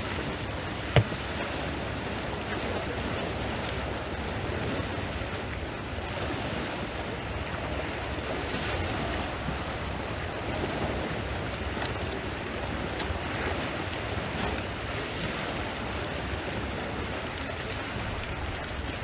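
Small waves washing against a pebble shore, with wind rumbling on the microphone. There is one sharp click about a second in.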